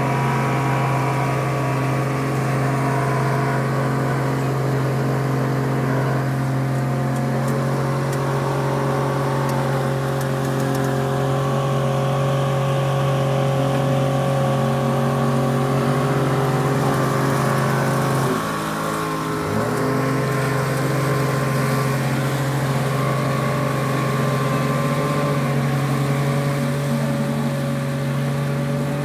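Yamaha 75 hp outboard motor running steadily under load, pushing a river ferry and churning a wake. About two-thirds of the way through its note dips briefly, then comes back up.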